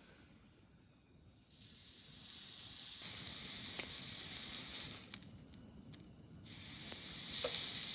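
Food sizzling on a hot pan. The sizzle starts faint and grows louder, drops away for a moment about five seconds in, then picks up again.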